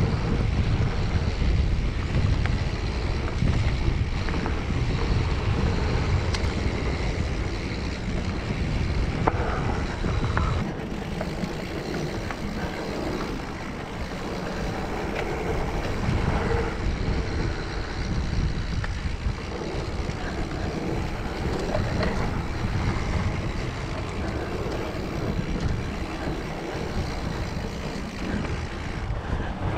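Wind rumbling on the microphone and mountain bike tyres rolling over a dirt trail, with scattered clicks and rattles from the bike. The low rumble eases about ten seconds in.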